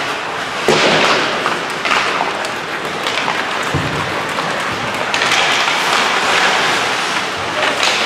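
Ice hockey play on a rink: skates scraping the ice and sticks and puck clacking, with several sharp knocks and one deeper thump about four seconds in.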